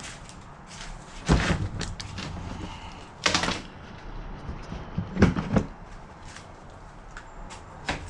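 Knocks, bumps and rustling of things being moved and handled while searching a workshop for electrical supplies, with three louder knocks a little over a second in, about three seconds in and about five seconds in.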